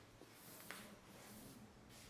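Near silence: faint room tone with a soft click.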